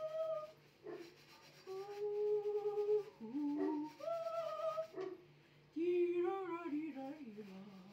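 A woman humming a tune without words, holding notes of about a second that slide up and down, with short breaks between phrases.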